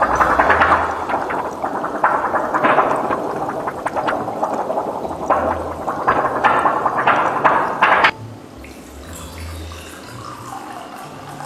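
Water bubbling hard like a pot at a rolling boil, with dense crackly pops, cutting off suddenly about eight seconds in. After it, quieter water is poured from a ceramic teapot into a cup.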